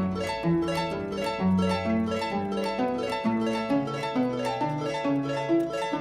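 Instrumental music of plucked strings: quick runs of plucked notes over a plucked bass line.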